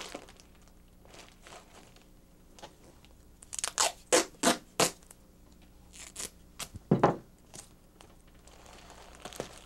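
Duct tape being pulled off the roll in a run of short, sharp rips about three and a half seconds in, with more rips around six to seven seconds in, the loudest near seven seconds.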